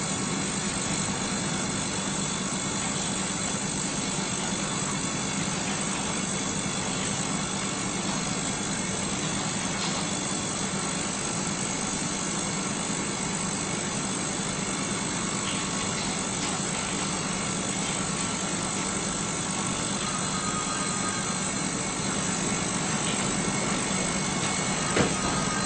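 Digital ultrasonic cleaner running with a DVD in its water-filled stainless steel tank: a steady hum with a hiss from the agitated water. One short click near the end.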